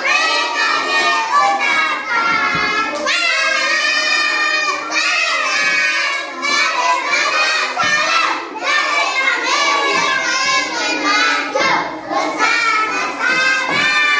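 A class of young children singing a song together in unison, loudly and partly shouting the words.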